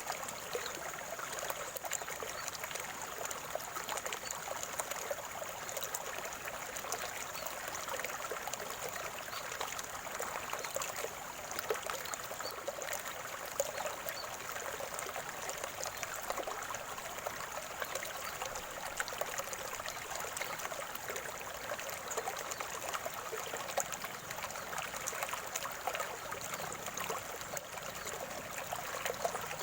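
Small stream of water trickling and gurgling steadily.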